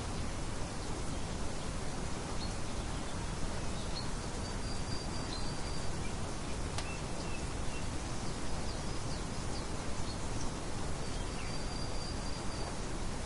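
Steady wind noise with birds chirping faintly now and then, including a couple of brief high whistled notes. One sharp click about seven seconds in.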